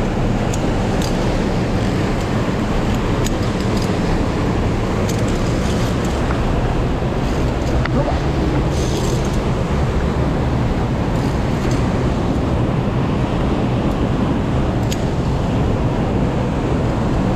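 Steady rushing of a mountain stream tumbling through a narrow rock gorge, loud and unbroken, with a few faint light clicks over it.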